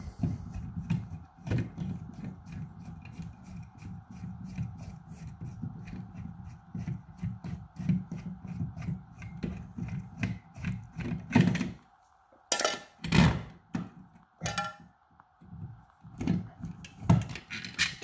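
A Phillips screwdriver turning out the mounting screws of a wall power outlet: a steady grinding rub of the driver in the screws, with rapid small clicks. About two-thirds of the way through, the rubbing stops and separate sharp clacks and knocks follow as the loosened outlet is handled.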